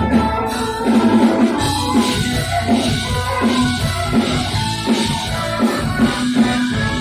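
Mor lam band music played live, with drum kit and guitar over a steady beat.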